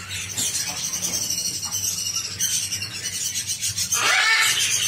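Caged parrots calling: a high, continuous chirring chatter, with a louder, harsher call about four seconds in.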